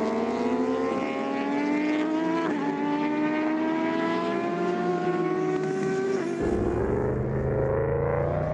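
Racing motorcycle engine accelerating hard up through the gears. The pitch climbs steadily and drops back briefly at each gear change, then climbs again.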